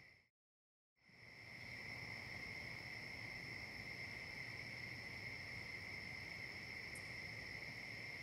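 Crickets chirring in a steady, unbroken high-pitched trill. The sound cuts out to silence for under a second near the start, then fades back in.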